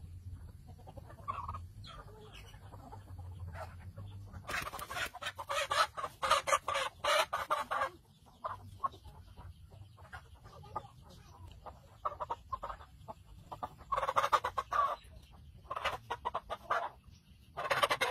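Chicken squawking and clucking in loud, harsh bursts: one long run a few seconds in, then shorter ones later on.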